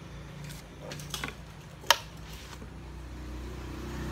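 Handling knocks and clicks from a corded electric massager being picked up and worked, with one sharp click near two seconds in, over a steady low hum that rises a little near the end.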